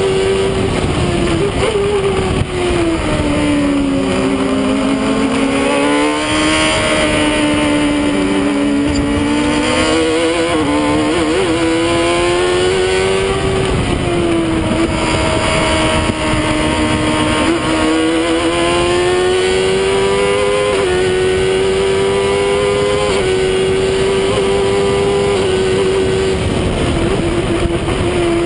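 Onboard sound of a Stohr WF-1 sports racer's engine at racing speed, its pitch falling and rising several times as the driver brakes and accelerates around the track, with a sudden drop at an upshift about two-thirds through. Steady wind and road noise rushes under the engine note in the open cockpit.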